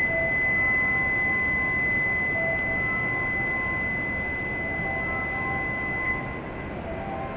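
Steady electronic door-closing warning tone sounding for about six seconds before the shinkansen departs, then cutting off.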